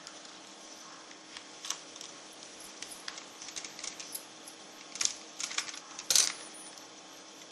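Small 00 screwdriver working the tiny screws out of a Nintendo DS Lite's battery compartment: scattered light clicks and small metallic clinks against the plastic shell, with a louder clatter about six seconds in.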